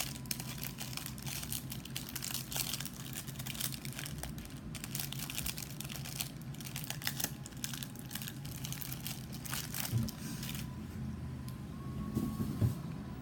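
Plastic snack wrapper crinkling and crackling as it is handled and torn open, in a quick irregular run of crackles that thins out about ten seconds in.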